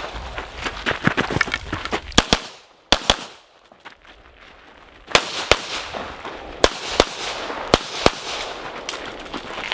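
Handgun shots from a competitor running a USPSA stage, fired in quick pairs and short strings. The firing stops for about two seconds near the middle while the shooter moves to a new position, then resumes.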